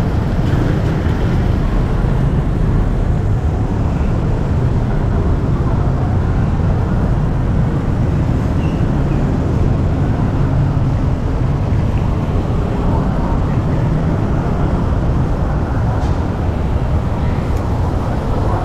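Steady low rumble of busy road traffic, with no single event standing out.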